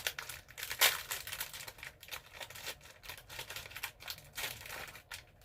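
Packaging of a packet of butter sablé cookies being handled and opened by hand: irregular rustling and crackling with a sharp crack about a second in.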